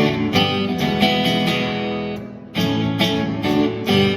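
Guitar strumming chords in a song's instrumental intro. The strumming stops for about half a second a little past two seconds in, then comes back in.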